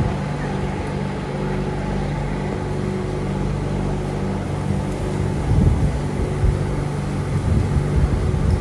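Steady electric hum of a Bangkok Airport Rail Link train standing at the platform with its doors open: a low drone with several held tones. Low thumps from passengers stepping across the gap come in the second half.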